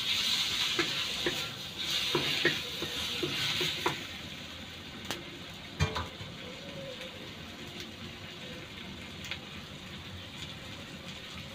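Tomatoes, onion and garlic sizzling in a stainless steel wok, stirred for the first four seconds with swelling hiss and clicks against the pan. After that comes a steadier, quieter sizzle with a few sharp clicks.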